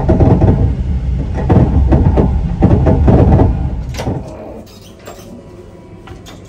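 Passenger train running on the rails: a loud rumble with rapid clacking from the wheels. About four seconds in it drops away sharply, leaving a quieter hum and a few clicks of a door handle and latch as the toilet compartment door is opened.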